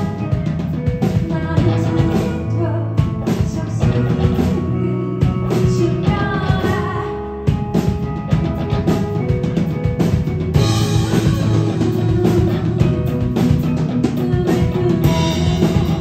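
Live rock band playing: electric guitar and drum kit, with a woman singing.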